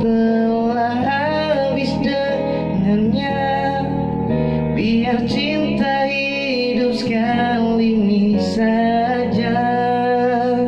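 A man singing into a handheld microphone over a backing track with guitar chords, holding long notes that slide up and down in pitch.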